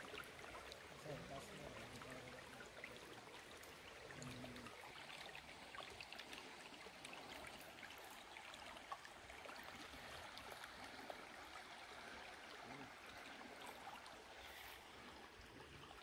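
Faint, steady trickle of a small shallow stream running over stones among grass.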